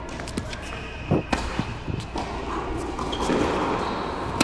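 Tennis ball bouncing on the court a few times in quick succession about a second in, followed by a single sharp crack near the end.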